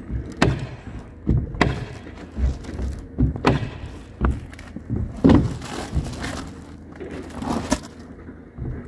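Irregular thuds and sharp knocks on a plywood roof deck as people kneel and move on it, handling a roll of peel-and-stick roofing membrane. About a dozen hits, uneven in spacing and loudness.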